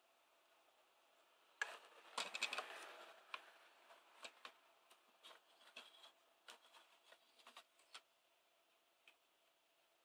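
The clear plastic waterproof housing of an SJ6000 action camera being handled. A burst of clattering and rustling comes about two seconds in, followed by scattered light plastic clicks and taps.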